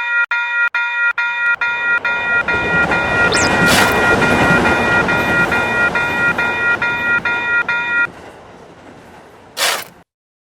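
Railroad crossing warning bell ringing 'kan-kan' at about two and a half strikes a second while a train passes with a rising rush of noise, loudest about four seconds in. The bell stops about eight seconds in and the train noise fades, then a short loud burst comes just before the sound cuts off.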